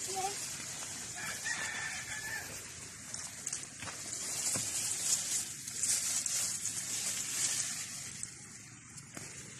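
A rooster crowing once, held for about a second and a half, starting about a second in. Under it is a steady high hiss and rustle of leafy peanut plants being pulled up by hand, louder in the middle, with two short knocks.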